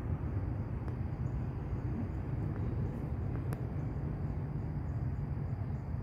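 Outdoor marsh ambience: a steady low rumble under a thin, steady high drone of insects, with two faint clicks.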